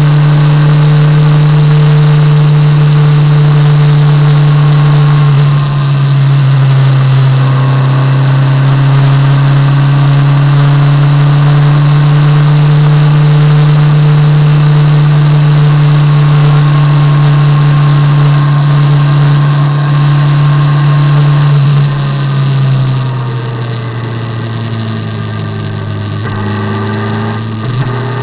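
Motorcycle engine running steadily under way, a loud even drone with a brief dip about six seconds in. Near the end the throttle closes and the note falls as the bike slows, then rises again briefly just at the end.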